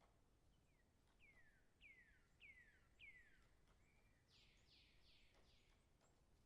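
Faint songbird singing: a run of five clear whistled notes, each sliding downward, followed by four rougher, buzzier notes that also fall in pitch.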